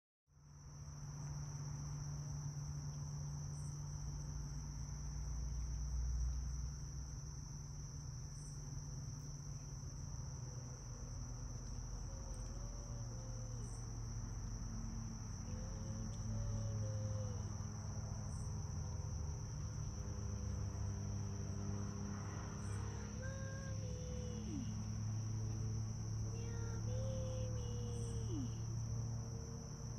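A steady high-pitched chorus of crickets chirring at night, over a low steady hum. A few faint, short wavering calls come in the second half.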